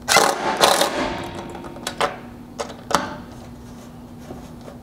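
Cordless driver with a hex bit tightening button-head bolts on a roof rack's front fairing in two short bursts within the first second, followed by a few sharp clicks.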